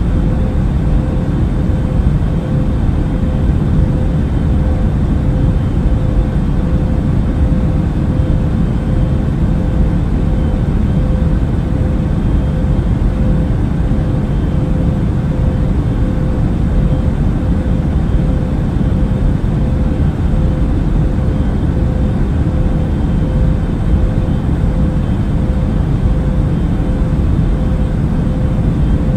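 Airliner cabin noise: a steady, deep rumble of engines and rushing air, with a faint constant hum in the middle.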